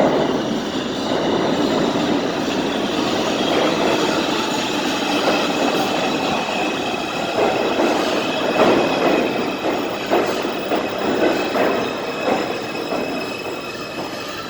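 R142 subway train running and slowing into a station: continuous rail rumble with irregular wheel clatter, a steady high wheel squeal, and the noise easing off near the end as it comes to a stop.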